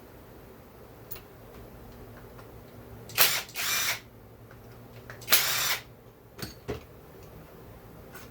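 Two short hissing bursts of spray or air from a nozzle, each about half a second long and starting sharply, about two seconds apart; a couple of light clicks follow.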